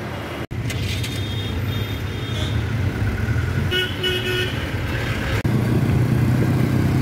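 Traffic heard from inside a moving taxi: a steady low engine and road rumble, with vehicle horns honking twice, about a second in and again around four seconds in.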